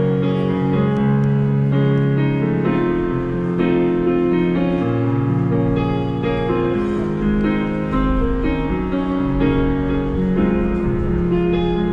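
Electronic keyboard played in a piano voice: held chords over low bass notes, changing about once a second.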